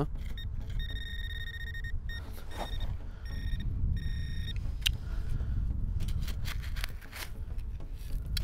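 Handheld metal-detecting pinpointer sounding its alert, a steady high beep with overtones held for about a second and then two shorter beeps, signalling metal in the dug hole. After it, a hand trowel scrapes and digs through gravelly soil, over a steady low rumble.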